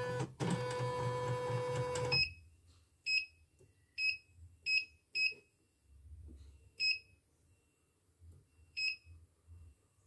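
CNY E900 embroidery machine running with a steady whine and hum for about two seconds, then stopping abruptly. After that its touch panel gives about seven short, high beeps at irregular intervals as its buttons are pressed.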